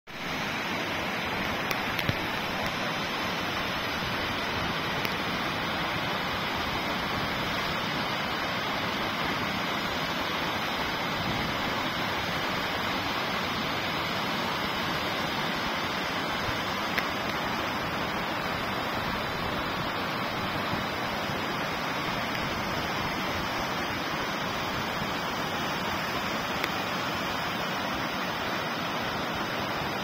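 Whangarei Falls' water rushing steadily: a continuous, even hiss of falling and running water, with a few brief clicks.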